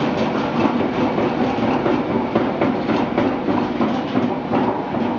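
Centrifugal deoiling machine running with its empty stainless steel basket spinning at speed: a steady mechanical running noise with a dense, fast rattle.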